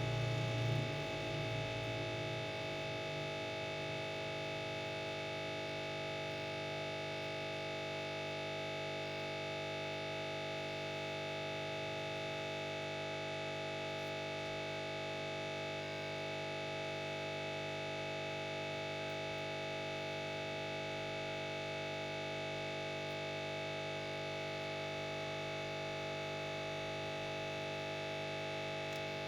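A steady droning buzz made of several held tones that do not change in pitch or level, with no rhythm.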